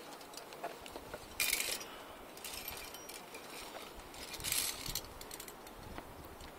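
Metal climbing gear (carabiners and quickdraws) clinking, with three short hissing rustles about one and a half, two and a half and four and a half seconds in.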